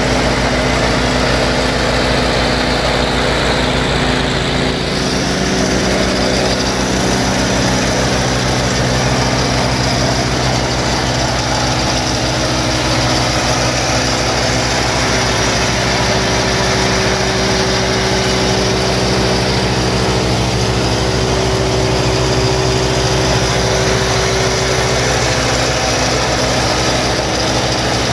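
Honda gas engine of an Altec DC610 6-inch wood chipper running steadily at high throttle, spinning the chipper disc with no wood being fed.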